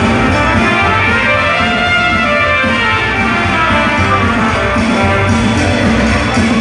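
Loud, upbeat show music playing continuously, with a steady beat and sustained melody lines.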